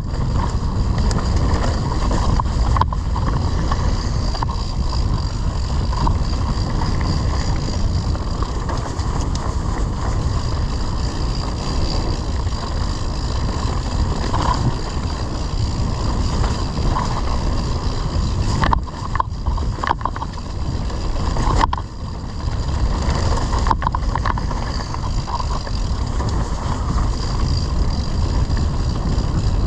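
Wind rushing over the camera's microphone during a mountain-bike ride, a steady low rush with scattered rattles and ticks from the bike over rough ground. The rush drops away briefly a few times around twenty seconds in.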